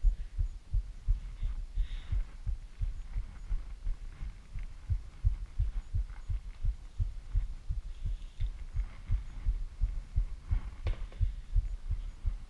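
Heartbeat sound effect: a steady run of dull low thumps, several a second, with faint rustling now and then.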